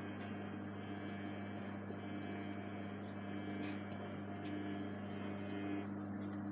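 Samsung WW80J5555FWEU front-loading washing machine humming steadily while in a suds lock, the state it goes into when too much detergent has built up suds.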